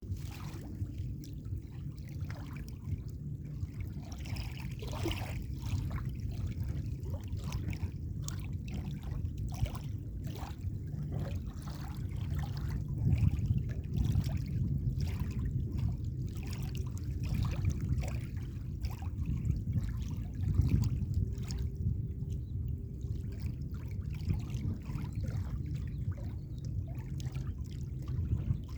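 Small sea waves lapping and splashing irregularly against the shore, over a steady low rumble.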